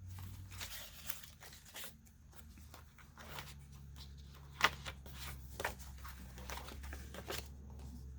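Paper rustling as a stack of envelopes, cards and postcards is handled and flipped through in irregular strokes, with one sharper snap about four and a half seconds in. A faint steady low hum runs underneath.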